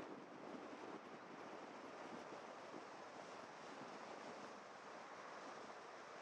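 Faint, steady rush of wind noise on a GoPro's microphone, with the tyre and road noise of a car driving along.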